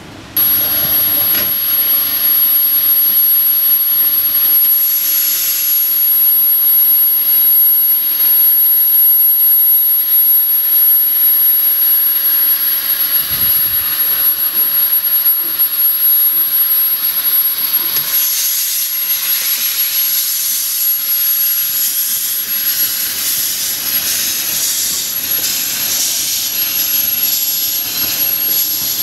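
Narrow-gauge saddle-tank steam locomotive Dolbadarn, a Hunslet quarry engine, letting off steam in a loud, steady hiss that starts abruptly. About two-thirds of the way through the hiss turns brighter and harsher.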